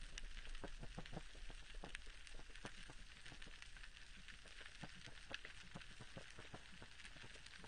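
Underwater sound on a coral reef: scattered sharp clicks and crackles over a low rumble that dies away over the first few seconds. The rumble is the fading tail of the boom from a small earthquake.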